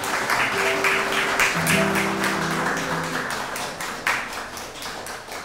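A sextet of classical guitars playing together: quick, repeated strummed strokes over held bass notes.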